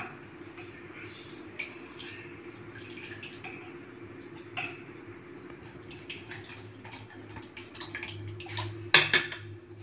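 Water being poured into a small steel pan of ground urad dal batter, quiet with a few small ticks. About nine seconds in, a spoon clinks sharply against the steel pan a few times as the batter is stirred.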